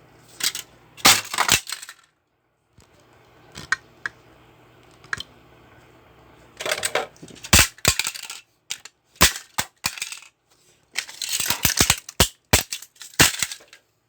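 A plastic toy remote-control car being smashed apart: repeated sharp cracks and clattering hits, some single and some in quick clusters, at an irregular pace.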